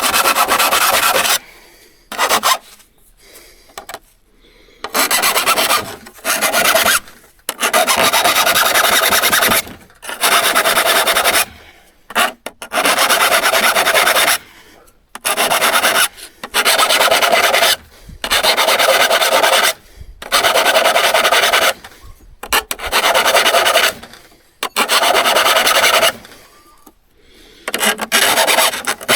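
Metal file stroking across a hand saw's steel teeth: a long series of rasping strokes, each about one to two seconds, with short pauses between, as the teeth are sharpened by hand.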